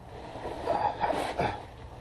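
About a second of scraping and rubbing from a mechanic working and shifting on a creeper under a car.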